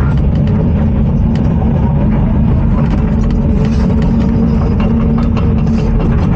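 Heavy tracked excavator's diesel engine running steadily under load, heard from inside the cab, with frequent short clanks and knocks from the tracks and frozen ground as the machine track-packs broken-up frost.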